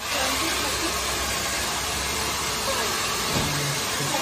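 Handheld electric hair dryer blowing steadily, blow-drying freshly cut hair; it cuts in suddenly at the start.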